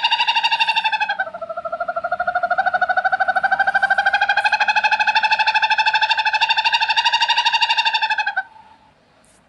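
Owl calling: one long, rapid trill on a nearly level pitch that dips slightly about a second in and stops about eight and a half seconds in.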